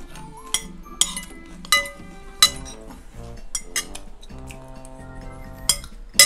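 A metal spoon and fork clinking against ceramic plates and soup bowls, about six sharp clinks, over steady background music.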